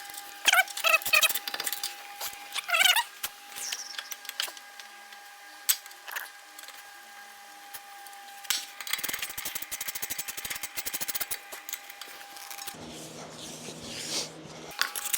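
Metal tools and hardware clinking as sway bar link nuts are put back on, with a rapid run of clicks lasting a couple of seconds near the middle, over a steady high-pitched hum.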